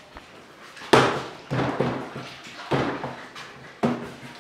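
Dull knocks and thuds on a steel bakery worktable as dough is handled and pressed down by hand, four of them spread unevenly about a second apart.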